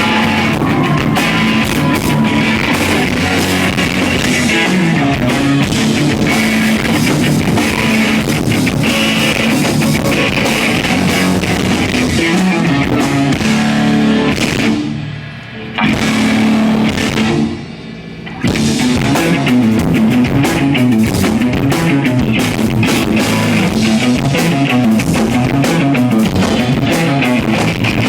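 Live rock band playing loud: electric guitars and a drum kit, stopping short twice for about a second near the middle before crashing back in.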